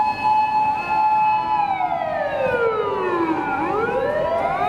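Japanese emergency-vehicle sirens from a fire engine and a police patrol car running together. One siren holds a high note, then slides down over about two seconds and climbs back up near the end, while a second siren holds a steady note underneath.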